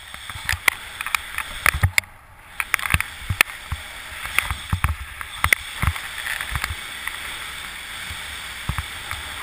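Skis running over groomed snow: a steady scraping hiss broken by irregular sharp clicks and knocks.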